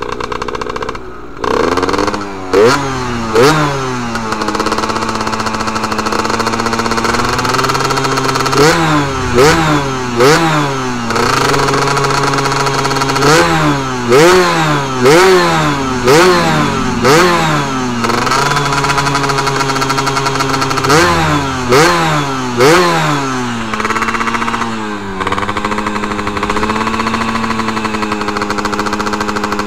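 Yamaha F1ZR's two-stroke single-cylinder engine running on the move, blipped again and again: each rev jumps sharply in pitch and drops straight back, often several in a row, between steadier stretches. The engine is still warming up.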